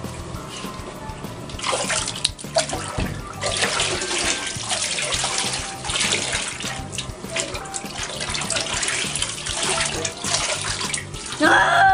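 Water poured from a metal bowl over a cat being washed in a half-full bathtub, splashing in repeated surges. Near the end comes a short, loud cry.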